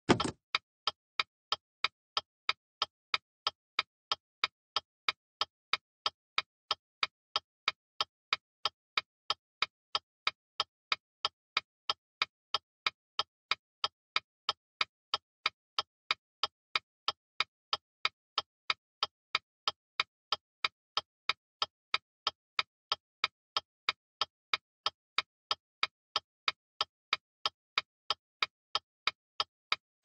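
Car turn signal (indicator) clicking: a steady, even run of short sharp clicks, about two and a half a second, as the indicator flashes.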